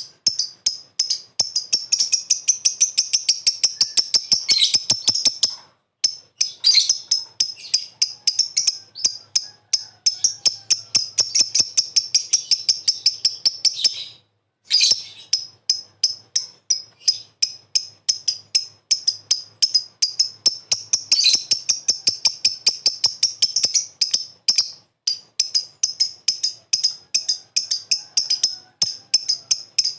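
Lovebird ngekek: a long chatter of shrill, rapid chirps, about five a second, breaking off briefly twice.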